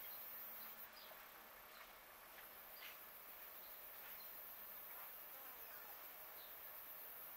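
Faint buzzing of flying insects, with a few brief faint sounds scattered through it.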